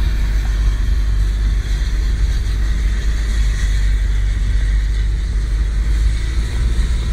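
Steady driving noise inside the cab of a 4x4 moving over snow: a strong low rumble from engine and tyres with an even hiss over it.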